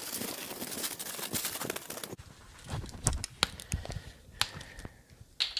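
Heavy-duty aluminium foil crinkling and crackling as it is pressed around a batch of ribs. It stops abruptly about two seconds in, giving way to quieter scattered clicks and a few low knocks of handling.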